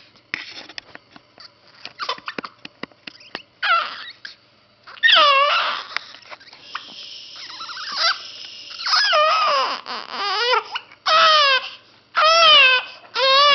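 Two-week-old baby with the hiccups fussing and crying in short, high, wavering wails that come more often toward the end. Small clicks in the first few seconds.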